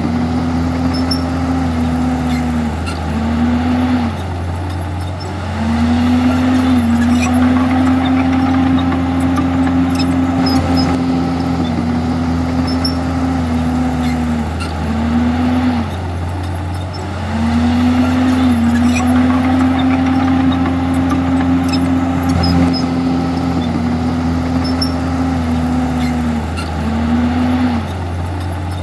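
Komatsu D51EX bulldozer's diesel engine running at high revs, its note sagging and recovering in a few quick dips, with the cluster of dips coming back about every twelve seconds.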